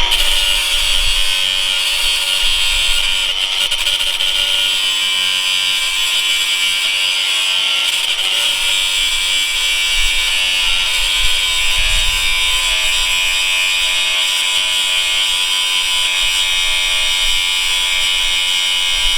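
Angle grinder running steadily at full speed, grinding through the riveted link of a motorcycle drive chain to break it to length.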